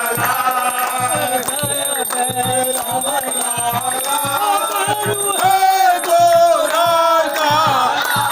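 Hindu aarti hymn sung by voices, with instrumental accompaniment and a steady percussion beat.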